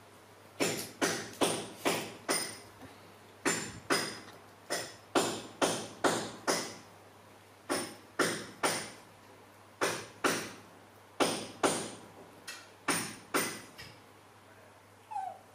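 Background music of short struck percussive notes in an even beat, about two to three a second, each fading quickly.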